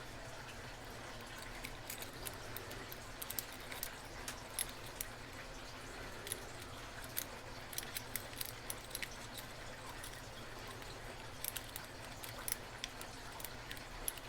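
Lock pick and tension wrench working the pins of a brass rim cylinder: light, irregular metallic clicks and scrapes, clustered more densely in some stretches than others, over a steady low hum.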